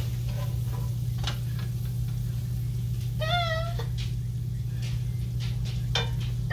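A cat meows once, a short wavering call about three seconds in, over a steady low hum. A few light clicks from the plastic spatula against the pan come through around it.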